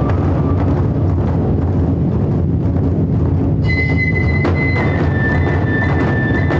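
Ensemble of taiko drums playing a fast, dense festival rhythm. About three and a half seconds in, a high flute joins with long held notes over the drumming.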